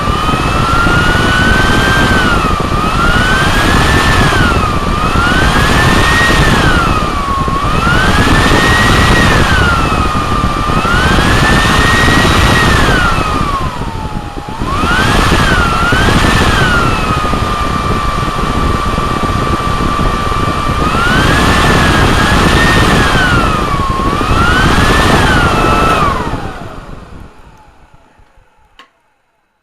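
Hoover vacuum cleaner motor running out of its housing with a loud high-pitched whine that spins up at the start, then rises and falls in pitch every couple of seconds. About halfway it dips briefly, holds one steady pitch for a few seconds, swings up and down again, then loses power near the end and winds down to a stop.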